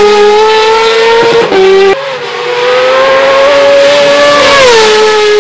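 Kawasaki ZX-6R race bike's inline-four engine at high revs through an Akrapovič race exhaust, a high, steady engine note. After a cut about two seconds in, the note climbs slowly as the bike accelerates, then falls smoothly in pitch as the bike passes close by.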